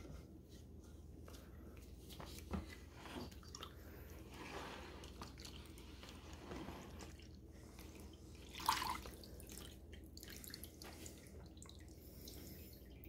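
Liquid sealer sloshing and dripping faintly as a black tray is dipped into a plastic tub of sealer and lifted back out, with one brief louder sound about two-thirds of the way through.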